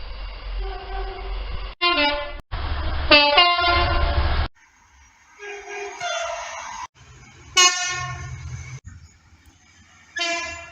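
Train horns in short clips cut one after another: several brief horn blasts, each a stack of tones, some dropping in pitch as a train passes, over the low rumble of the trains.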